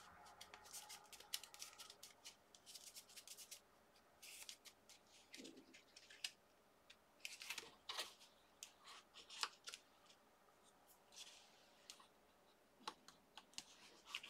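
Faint rustling and scratching as small glued paper layers are handled and pressed together with the fingers, then a bone folder rubbing over the paper near the end; short scattered scratches.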